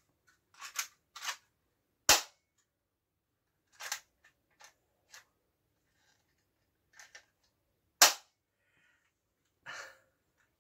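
Cheap plastic airsoft pistol being worked by hand, unloaded: a series of sharp plastic clicks from its slide and trigger, two of them loud snaps about six seconds apart.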